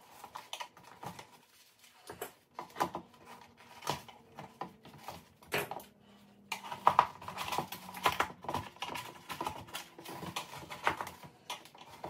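A small hand tool scraping and picking softened old lens glue out of a plastic headlight housing: irregular clicks and scrapes, coming thicker and louder from about halfway through.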